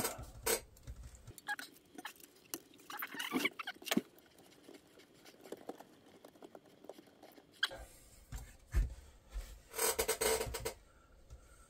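Scattered small clicks, scrapes and rustles of fingers working plastic wiring connectors and loose cables inside an opened Sony Betamax video recorder, with a few low knocks as the metal chassis is tipped up on its edge on the bench. The handling is sparse in the middle and busier near the end.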